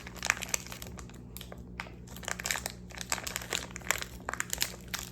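Gooey slime being squished and stretched by hand, giving irregular sticky crackles and small pops.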